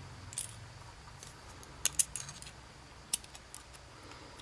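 Small metal lock pins clicking and tinkling as the driver pins are taken out of a dimple lock's pin chambers: a handful of short, sharp metallic clicks at irregular moments.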